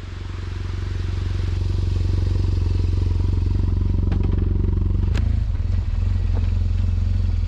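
BMW R 1200 GS Adventure motorcycle's boxer-twin engine running steadily, growing louder over the first couple of seconds. A few small clicks come about four and five seconds in.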